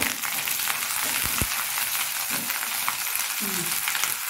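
Spices with ginger and melon-seed (char magaj) paste frying in hot oil in a pan, a steady sizzle, with the spatula stirring and a couple of short knocks against the pan about a second and a half in.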